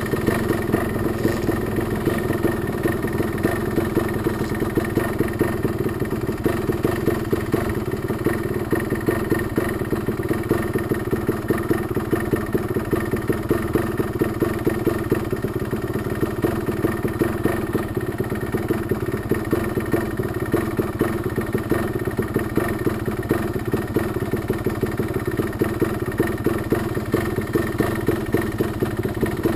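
Dirt bike engine idling steadily, with no revving.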